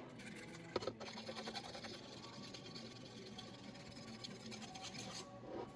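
Flat file scraping along the edge of a steel chainsaw bar, worked in circular strokes to take off the worn lip of steel (burr) along the rail, with a sharp click about a second in. A low steady hum runs underneath.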